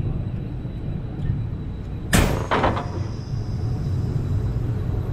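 Steady low rumble of a Lightning Rod wooden roller coaster train rolling slowly along the track. About two seconds in comes a sharp, loud burst, like a clunk and hiss, followed right away by a second, shorter one.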